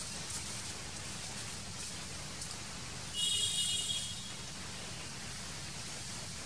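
Steady hiss of outdoor background noise, with one short high-pitched call lasting under a second about three seconds in.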